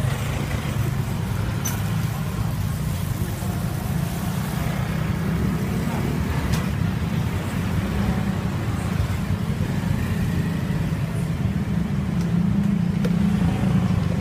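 Steady low engine rumble in the background, with a couple of faint clicks.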